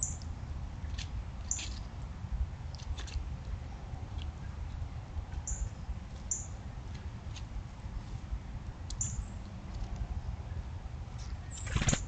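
Small songbird giving short, high chip notes, about half a dozen spaced a second or more apart, with a few faint clicks, over a steady low rumble.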